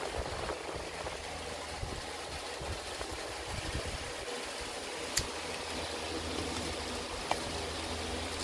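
Steady low mechanical hum, with a sharp click about five seconds in and a lighter one about seven seconds in.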